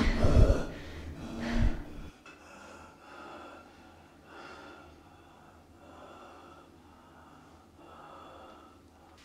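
A woman gasping through a hand held over her mouth, with two louder gasps in the first two seconds. After that come only faint breaths every second or two.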